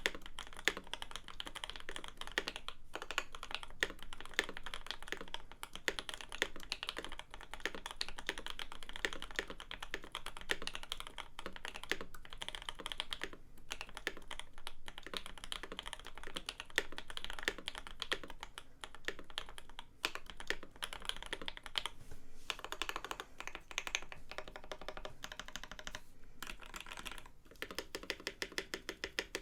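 Steady, fast typing on a Leopold FC980M mechanical keyboard in a heavy Norbauer Heavy 9 metal case, fitted with lubed and filmed H1 switches and plate foam. The keystrokes come in a dense run of clicks with a few brief pauses.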